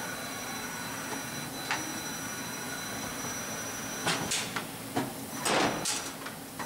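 Kitamura Mycenter 2 vertical machining center traversing its table along the X axis, with a steady machine hum and a faint high whine. One knock comes a little under two seconds in, and a burst of clunks with a scraping rattle from the telescoping steel way covers comes from about four seconds in, as a way cover catches and sticks.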